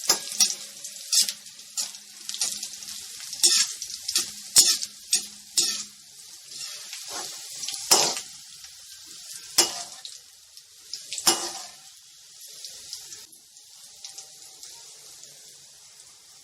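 Green chillies and curry leaves sizzling in hot oil for a tempering, with metal spoon and utensils clinking and scraping against the pan. The sizzling thins out over the last few seconds.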